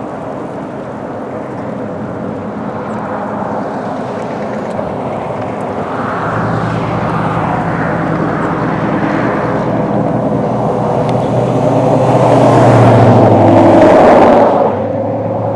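A motor vehicle's engine hum with rushing road and wind noise. It grows steadily louder, peaks, then drops off suddenly near the end.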